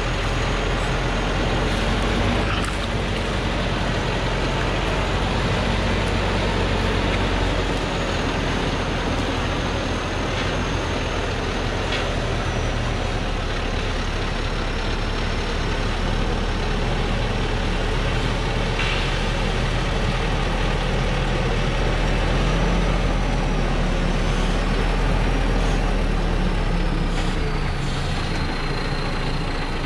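Diesel engine of a Thaco Foland truck running steadily as the truck crawls along a rough dirt track under a heavy load of acacia logs, with a thin high whine that drifts lower in pitch toward the end and a few short knocks.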